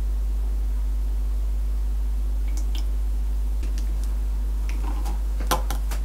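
Light clicks and taps of plastic toy cutlery on a plastic plate and toy food: a few scattered ones, then a quick cluster near the end. A steady low hum runs underneath.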